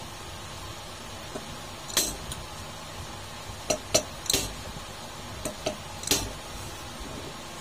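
Sharp metal clinks of a steel screwdriver and wrench against a small fan-motor ball bearing as the bearing is pried off its shaft without a puller. About seven short clinks, the loudest about two and four seconds in.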